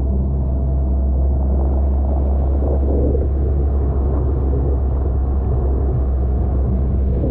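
Inflatable dinghy's outboard motor running steadily under way, a constant low rumble, with water rushing and splashing along the inflatable tube.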